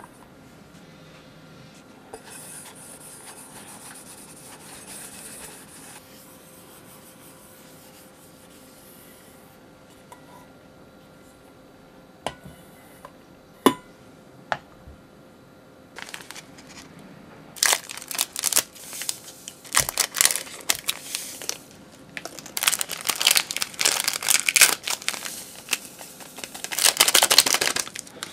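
Small plastic gelatin sachets torn open and crinkled as powdered gelatin is shaken into a glass measuring jug. This makes a dense crackling rustle over the second half. Before it there is quieter handling with one sharp clink.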